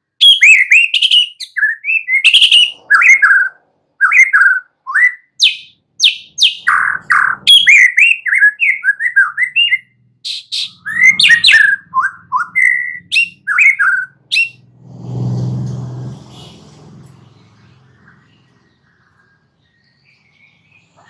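White-rumped shama singing a fast, varied song of short whistled notes, chirps and sweeping phrases, which stops about two-thirds of the way through. A low rumble then swells and fades.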